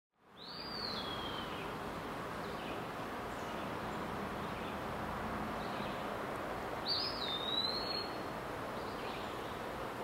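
Steady outdoor background noise with two single bird calls. Each rises sharply and then slides down in pitch, the first about a second in and the second, a little longer, about seven seconds in.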